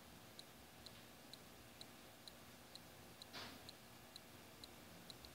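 Near silence with a faint, regular ticking, a little more than two ticks a second, and a brief soft swish about three and a half seconds in.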